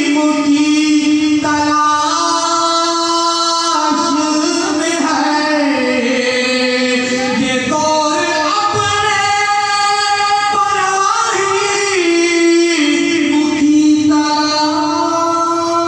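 A man's solo voice in melodic Islamic devotional chanting, unaccompanied and amplified through a microphone, with long held notes that slide and ornament between pitches.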